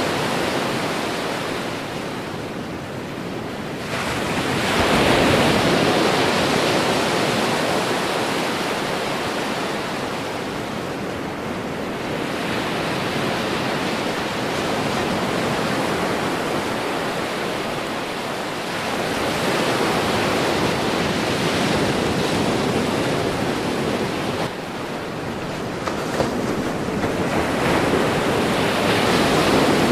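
Ocean surf breaking on a sandy beach: a continuous wash of waves that swells louder as each wave crashes, most sharply about four seconds in and again near the end.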